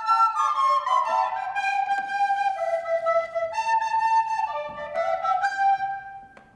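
Children's recorder ensemble playing a tune in parts on descant recorders; the playing dies away and stops about six seconds in.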